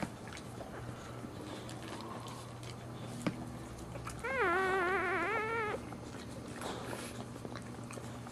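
A newborn boxer puppy gives one thin, wavering cry lasting about a second and a half, around the middle, amid faint wet clicks as the mother licks the puppies.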